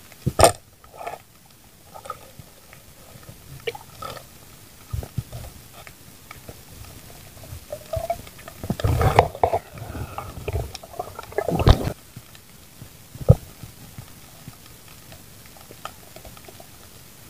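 Underwater sounds from a night spearfishing dive: scattered sharp clicks and knocks, with a rough, noisy stretch about nine to twelve seconds in and one last sharp knock a little after.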